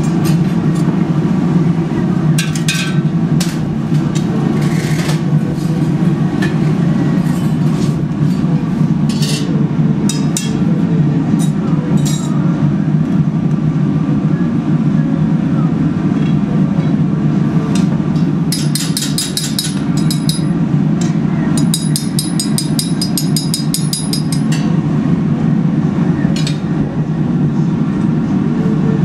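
Glass furnace's fire running with a loud, steady low rush. Scattered sharp clicks and taps sound over it, with two runs of rapid ticking about two-thirds of the way through.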